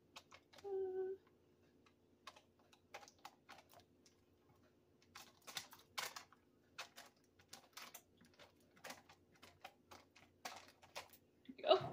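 Irregular light clicks, taps and crinkles of a silicone-tipped spatula scraping cubes of cream cheese off a foil wrapper into a pot of soup. A brief steady squeak-like tone comes about a second in, and a short louder sound comes near the end.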